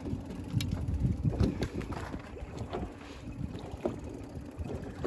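Wind buffeting the microphone over the low rumble of a fishing boat moving slowly while trolling, with a few light knocks and clicks.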